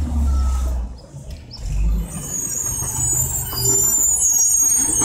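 Mack LE garbage truck with an Amrep automated side loader pulling up at the curb, its diesel engine running low. A high-pitched squeal sets in about halfway through.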